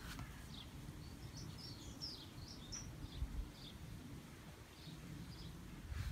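A small bird singing a quick run of short, high chirps from about a second in, with a few more scattered chirps near the end, over a low rumble.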